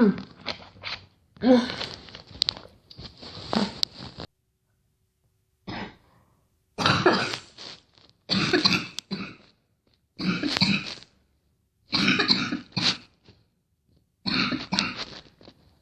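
A girl coughing in repeated fits, about nine bouts of coughing separated by short silent pauses.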